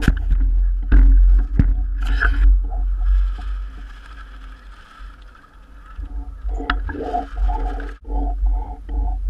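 Water sloshing and gurgling right against a camera riding at the waterline on a model sailboat, muffled, over a deep rumble, with a few sharp knocks in the first two seconds and runs of quick pulses, about three a second, near the end.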